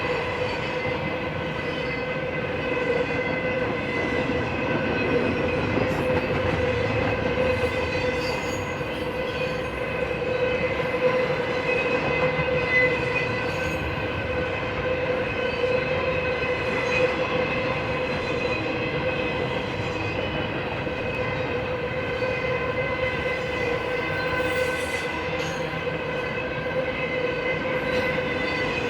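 BNSF intermodal freight train rolling steadily past on the rails. A continuous rumble carries a steady ringing whine of several tones from the wheels on the rail.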